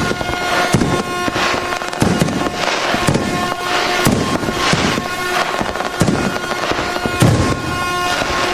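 Fireworks going off in quick succession, a sharp bang about every half second with crackle after each, over a steady air horn tone. The loudest bang comes about seven seconds in.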